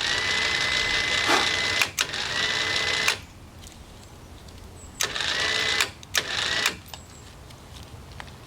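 Electric winch motor whining in short bursts, four runs with clicks as it switches on and off; its pitch rises quickly at the start of each run.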